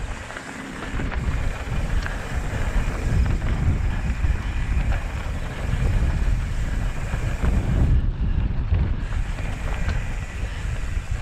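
Wind buffeting the microphone and mountain bike tyres rumbling over a dirt trail on a fast descent, with scattered clicks and rattles from the bike.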